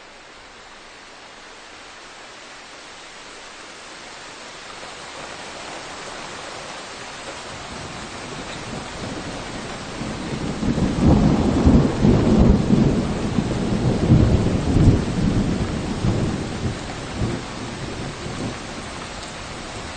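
Steady rain hissing in a forest, growing louder, with a long, uneven low rumble that swells about halfway through and fades near the end.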